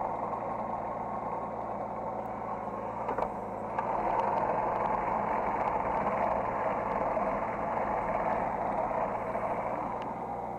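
Hydraulic excavator engine running steadily, heard from the operator's seat. About four seconds in it gets louder and stays up, then eases back near the end, with a couple of faint clicks just before the rise.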